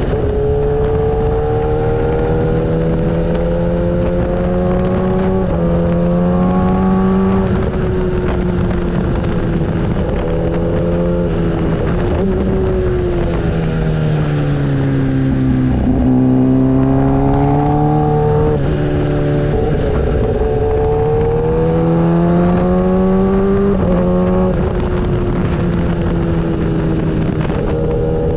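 Motorcycle engine running while riding. Its pitch rises slowly and drops in steps every few seconds, as with throttle and gear changes, over a steady rushing noise.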